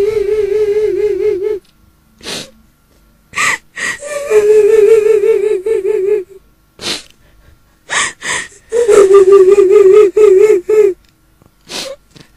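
A woman's eerie crying, the kuntilanak ghost's cry used as a horror sound effect. Long, quavering wails alternate with sharp, gasping sobs drawn in between them: a wail fades out about a second and a half in, another comes about four seconds in and a third about nine seconds in.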